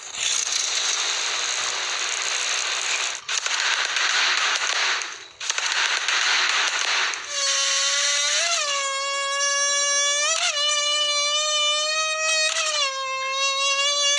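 Foley sound effects being made: a dense crackling hiss for about seven seconds, broken twice by short gaps. Then a steady high-pitched whine with many overtones, which swoops briefly upward about every two seconds.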